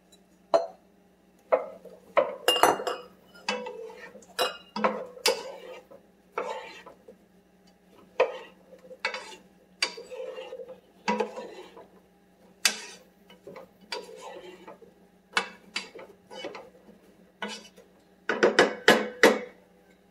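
Wooden spatula stirring diced potatoes, onion and celery in a metal saucepan, knocking and scraping against the pot at irregular intervals, with a quick run of knocks near the end. A faint steady hum sits underneath.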